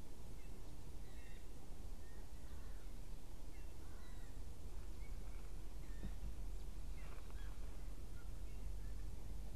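Wild birds calling at a distance: many short, high chirps scattered through, over a steady low background rumble.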